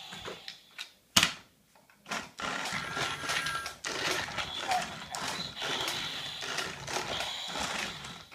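Battery-powered Thomas the Tank Engine toy train driving across a tabletop: a sharp click about a second in, then from about two seconds a steady rattle of its motor and plastic wheels.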